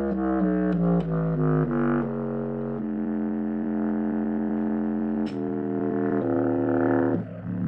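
Bass clarinet played through a voice-effect processor, giving a buzzy, drone-like tone: a quick run of short notes, then one long held note, then a few more notes, a brief break near the end and a new note.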